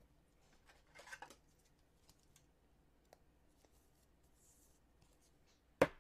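Baseball trading cards being handled: a brief, faint scratchy rustle about a second in, then one sharp tap near the end.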